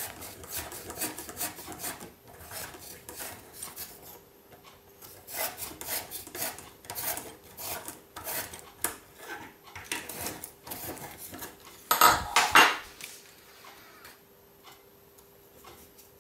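Hand reamer being twisted into the helicopter frame's plastic tail-boom socket, scraping in a run of irregular rasping strokes as it widens the hole. The loudest burst comes about twelve seconds in.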